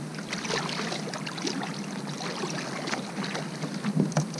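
Shallow water sloshing and splashing around a wading angler's legs, with irregular small clicks, and a few louder knocks about four seconds in as he handles gear on a plastic kayak.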